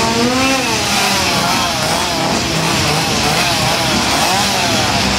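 Gas chainsaws running loud and steady, their engine pitch rising and falling as they are revved.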